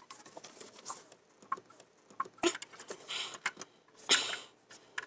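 A 2005 Mini Cooper S's plastic EVAP charcoal canister being worked loose by hand from its rubber-grommeted mounting pins: scattered scratching, clicks and scrapes of plastic against plastic and rubber.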